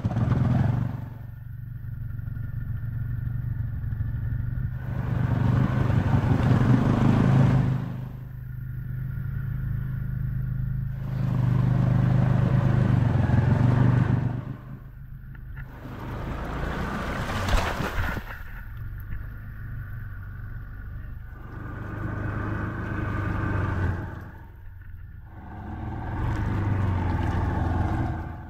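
ATV engine running while the quad wades through deep creek water, the throttle opened in repeated surges of a few seconds each, with a steadier low engine hum between them.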